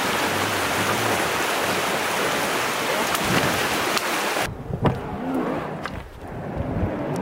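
Steady, loud hiss of rushing water that cuts off abruptly about four and a half seconds in. Low wind rumble on the microphone follows, with a few sharp knocks.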